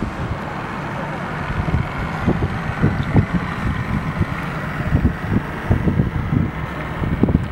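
Wind buffeting the microphone in irregular low thumps over a steady outdoor hiss; no distinct engine sound stands out.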